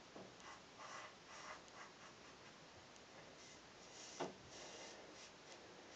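Double-edge safety razor scraping through lathered stubble in short, faint strokes, on the second pass across the grain. A single soft knock about four seconds in.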